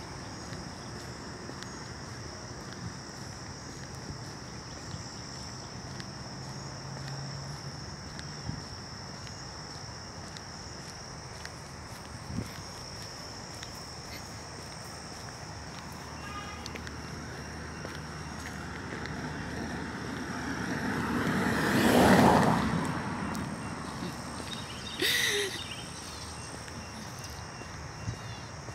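A car passing on the road, growing louder to a peak about three-quarters of the way through and then fading, over a steady high insect drone and a few light footsteps.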